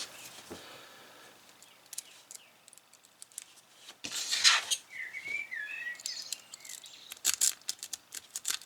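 A cheap padlock being handled and worked open: scattered small metallic clicks and a short rustle, then a quick run of sharp clicks near the end. A short warbling chirp sounds about midway.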